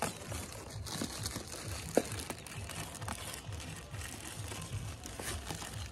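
A plastic courier bag crinkling as it is handled and pulled open, with one sharp click about two seconds in.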